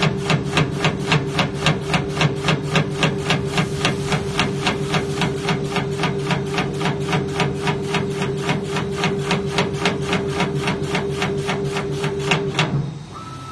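Brunetti automatic meat slicer cutting slices off a frozen meat block: a sharp knock about four times a second from each stroke, over the steady hum of its motor. The slicing and motor hum stop suddenly about a second before the end.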